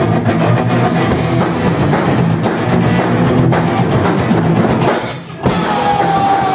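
Rock band playing, the drum kit driving a steady beat under dense guitar. About five seconds in the music breaks off for a moment, then comes back with a long held note over the band.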